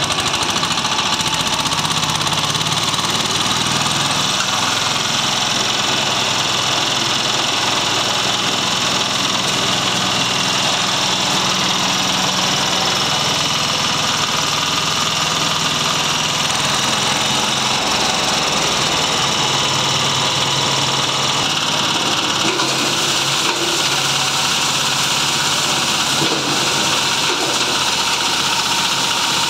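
Small stationary diesel engine running steadily, belt-driving a mini stone crusher as stones are fed in and crushed. The level stays even throughout, with a shift in the crusher's higher-pitched clatter about three-quarters of the way through.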